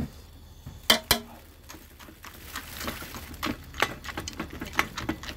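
Kitchen clatter as dog food is heated on a gas stove: two sharp metal knocks about a second in, the first ringing briefly, then a run of light, irregular clicks and taps.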